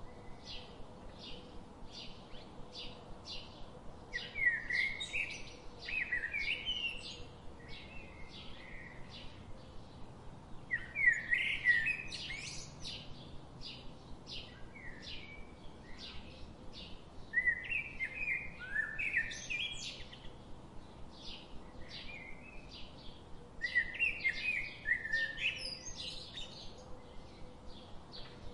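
Songbirds singing: short high chirps repeated about twice a second, with louder warbling phrases of quick rising and falling notes breaking in roughly every six seconds, over a faint steady hiss.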